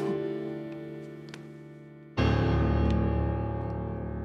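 Background music: sustained keyboard chords that slowly fade, with a deep new chord struck about two seconds in.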